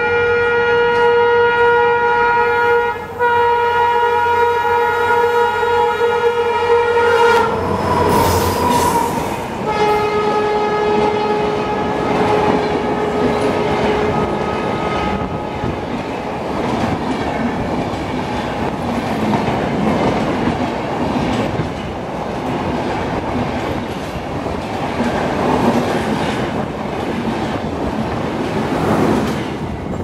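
WDP4 diesel locomotive sounding its horn in a long blast, broken briefly about three seconds in, as it approaches. The locomotive and its express coaches then pass close by at speed with a loud rush and wheel clatter, and a second, lower horn blast comes a couple of seconds after it passes.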